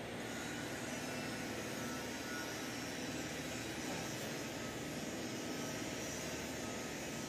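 Steady, unbroken roar of steel fabrication workshop machinery, with a faint thin tone running through it.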